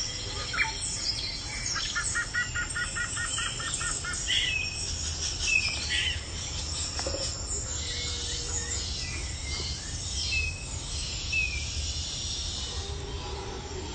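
Recorded rainforest ambience: many birds chirping and whistling over a steady high insect buzz, with a quick run of about a dozen evenly spaced chirps about two seconds in.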